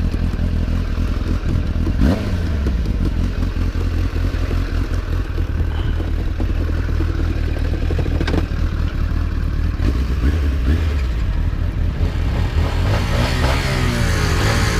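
Suzuki GSF 600 Bandit's inline-four engine through a BOS slip-on exhaust, heard from an onboard camera, running steadily. The revs change briefly about two seconds in and shift up and down again near the end.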